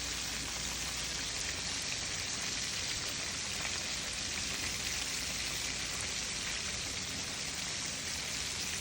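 Chicken wings deep-frying in hot oil: a steady, even sizzle with fine crackling.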